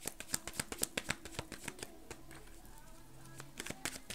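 A deck of tarot cards being shuffled by hand: a quick run of light clicks that thins out in the middle and picks up again near the end.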